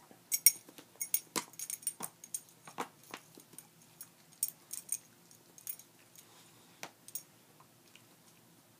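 A dog chewing and tugging at a plush squeaker toy: irregular sharp clicks and metallic jingles, thick in the first three seconds and sparser after, with no squeak.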